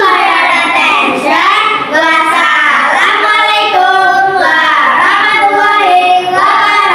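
A child's voice singing a song, held notes bending between syllables.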